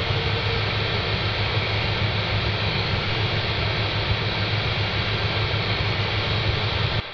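Dark ambient noise drone: a dense, steady wall of static-like hiss over a low steady hum, with a faint high tone fading out about a second in. It drops out abruptly at the very end.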